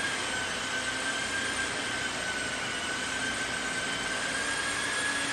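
A steady high-pitched machine whine over a hiss, holding nearly one pitch and creeping slightly higher toward the end.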